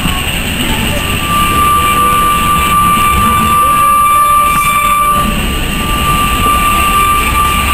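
Narrow-gauge steam train's coaches rolling past, with a steady rumble of wheels on rail. A steady high-pitched squeal joins about a second in and holds on.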